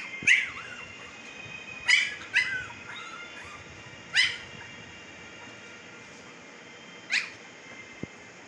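Two-week-old Siberian husky puppies giving short, high-pitched yelps, six in all, each dropping in pitch, spaced irregularly with gaps of one to three seconds. A light tap near the end.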